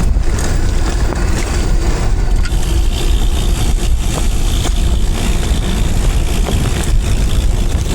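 Steady wind rumble on the microphone with the rolling noise of a recumbent trike being ridden.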